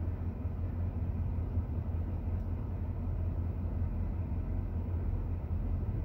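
Steady low hum of a car idling, heard from inside the cabin while it is stopped.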